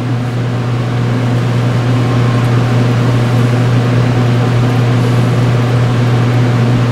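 Steady fan hum: a constant low drone with an even hiss over it, unchanging throughout.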